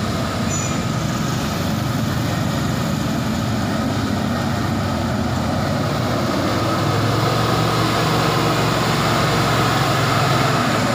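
Mitsubishi Fuso truck's diesel engine running steadily under load as it crawls through deep mud, growing louder from about two-thirds of the way in as it draws near.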